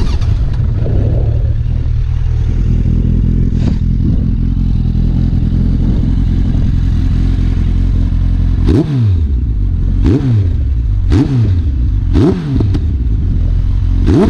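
Suzuki GSF1200S Bandit's inline-four running through a Yoshimura RS-3 slip-on exhaust. It idles steadily, then gets five quick throttle blips from about nine seconds in, each rising sharply and falling back.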